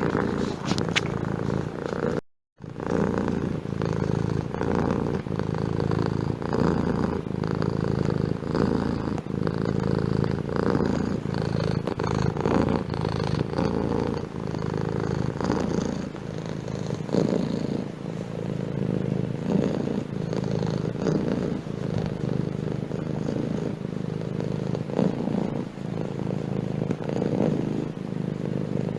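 Domestic cat purring steadily and continuously, close up, with a brief silent break about two seconds in.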